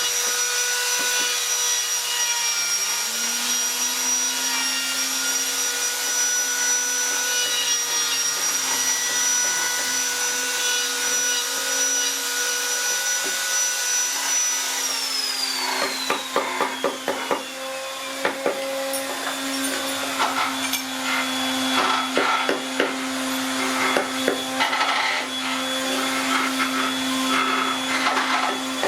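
Electric woodworking power-tool motors running with a steady whine. One spins up early on, and another winds down about halfway through. After that come repeated knocks and clicks of tools working wood.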